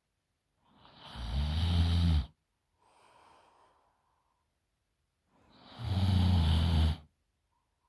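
A woman snoring through an open mouth: two loud snores about four seconds apart, each building up over a second or so, with a soft breath out between them.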